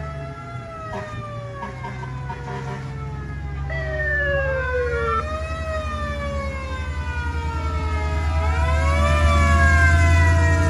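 Fire apparatus sirens wailing, several overlapping tones slowly rising and falling, over the low rumble of a passing truck engine that grows louder near the end.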